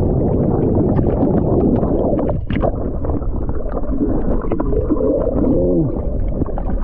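Muffled underwater rush and gurgle of air bubbles churning around a submerged microphone just after plunging into the water, crackling with small clicks and pops. A brief warbling gurgle comes near the end.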